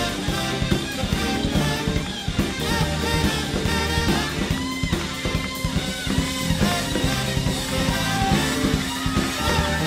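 A jazz-fusion band playing live, with drum kit, electric guitar and keyboards.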